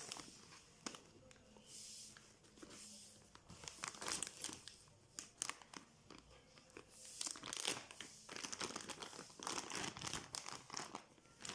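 The soldering iron's packaging being cut and pulled open by hand: irregular crinkling, rustling and tearing, busiest in the second half.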